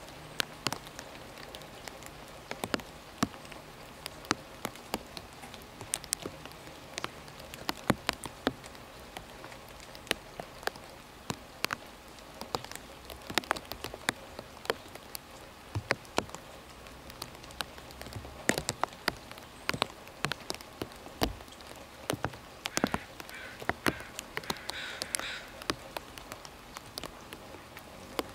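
Rain falling: many irregular sharp drips and ticks over a steady hiss of rain.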